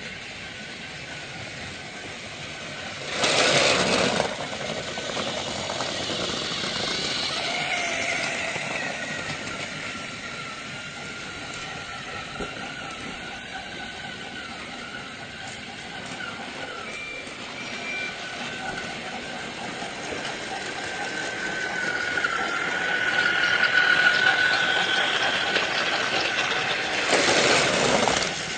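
A motor running with a steady whine that rises slightly in pitch past the middle, broken by two short loud rushes of noise, one about three seconds in and one near the end.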